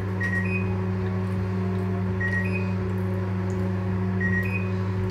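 Microwave oven running with a steady low hum. A faint two-note rising beep repeats about every two seconds.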